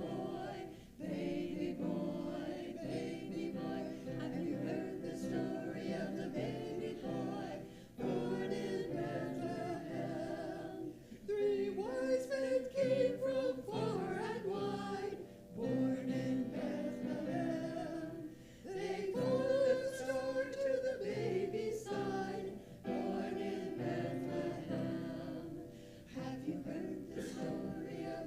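A church choir singing a slow hymn or anthem in phrases a few seconds long, each ending in a held note followed by a short breath.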